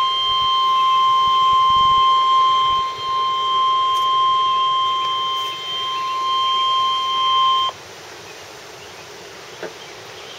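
NOAA Weather Radio warning alert tone: one steady, loud 1050 Hz beep that signals a National Weather Service warning is about to be read. It cuts off abruptly about three-quarters of the way through, leaving faint radio hiss.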